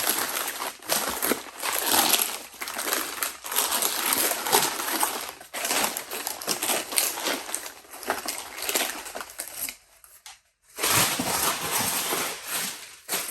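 Paper wrapping crinkling and crumpling as a camera is unwrapped by hand: a dense, irregular crackle with a brief pause about ten seconds in.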